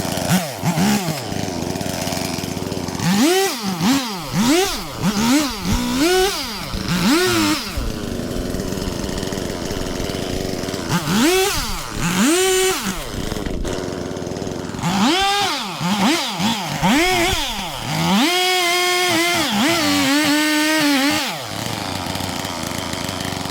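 Two-stroke chainsaw revved over and over in short bursts, its engine pitch climbing and dropping back toward idle each time, then held at high speed for a few seconds about two-thirds of the way through before falling back to idle.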